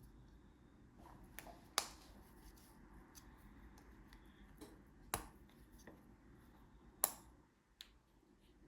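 A few sharp clicks and taps of a small plastic brake light switch being handled and worked apart on the bench, about five in all, the loudest about two and seven seconds in.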